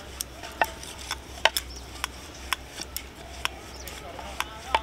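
Wooden rolling pin rolling out roti dough on a wooden board, with light, irregular wooden clicks and knocks, about two a second, as the pin and the roti are handled.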